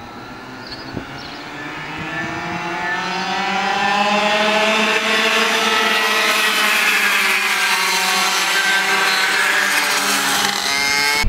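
A pack of two-stroke racing kart engines at full throttle, several engine notes overlapping. The notes rise in pitch and grow louder over the first few seconds as the karts approach and pass close by, then hold loud.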